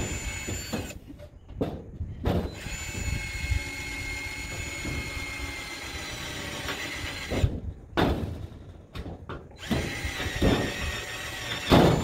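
Cordless power drill boring holes through a sheet-metal door. A few short bursts come first, then a steady run of about five seconds with a high whine. After a pause with short bursts, it runs again near the end.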